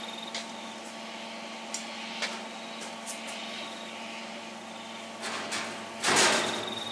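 A few light knocks and handling sounds over a steady low shop hum, then a short, louder scrape or rattle about six seconds in as the bare steel cab is handled.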